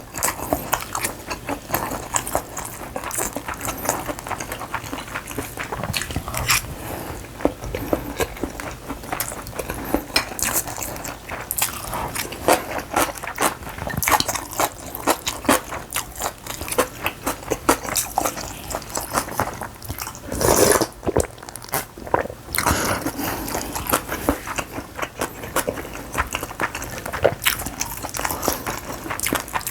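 Close-miked eating sounds: steady chewing and crunching of food, full of small wet mouth clicks. There is one longer, louder sound about twenty seconds in.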